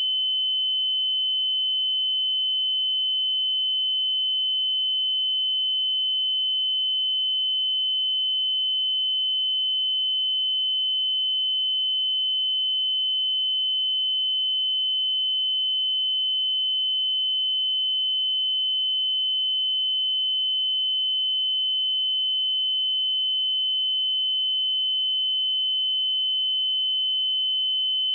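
A pure 3045 Hz sine-wave test tone, a single steady high-pitched beep held at constant level without any change.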